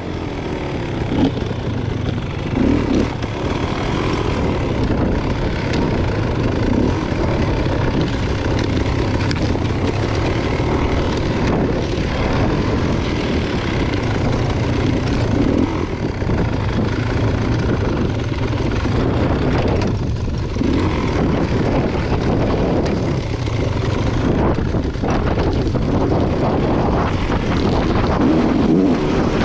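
Beta Xtrainer two-stroke enduro motorcycle engine running under way, its revs mostly steady with small rises and falls.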